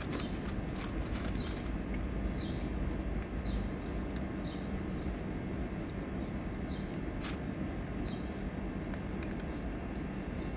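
Steady low outdoor rumble with a bird chirping short falling notes every second or so, and a few faint sharp clicks.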